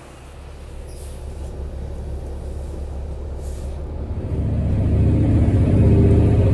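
City bus engine running and accelerating, heard from on board: a low rumble that builds steadily, then grows clearly louder about four seconds in.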